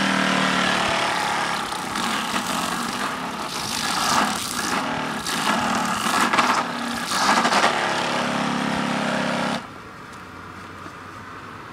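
Electric Eureka vacuum motor driving a homemade trimmer-style mower, running with a high whine over a steady hum, with several louder surges of noise in the middle. It shuts off suddenly near the end.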